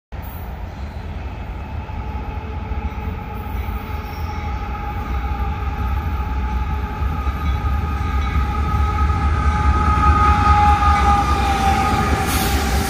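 Union Pacific freight train's diesel locomotives approaching and passing close: a deep rumble with a steady whine that grows steadily louder and dips slightly in pitch as the lead units go by near the end.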